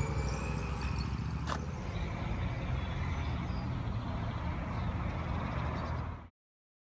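Steady outdoor background noise with a low rumble, one sharp click about one and a half seconds in, then a quick fade to silence near the end.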